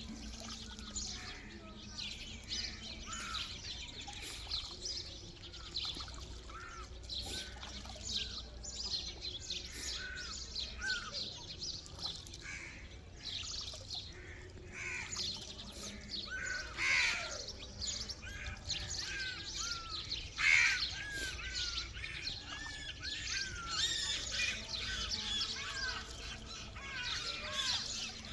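Many small birds chirping and calling at once, a dense chatter of short overlapping chirps, with a couple of louder sweeping calls past the middle.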